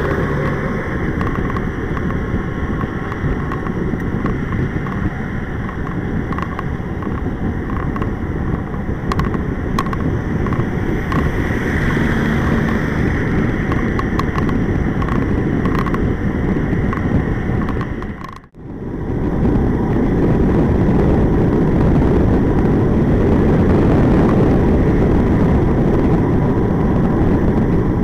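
Steady wind rush on a bike-mounted action camera's microphone, with tyre and road noise from a tandem bicycle rolling at speed on asphalt. The noise drops out briefly about two-thirds of the way in, then carries on slightly louder.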